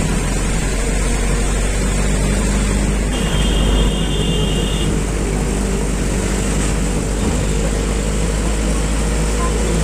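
Steady engine and road noise of a vehicle, heard from aboard while it drives. A thin high tone sounds for about two seconds, a few seconds in.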